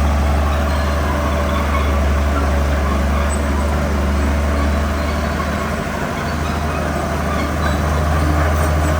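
Diesel engine of a Komatsu D41P crawler bulldozer running steadily under load, a deep low drone with broad mechanical noise over it, easing slightly about two-thirds of the way through.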